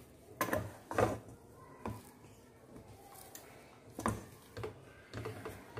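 A ladle knocking and scraping against a pan as thick cooked rice-flour dough is stirred: a string of separate short knocks, the loudest about half a second and a second in.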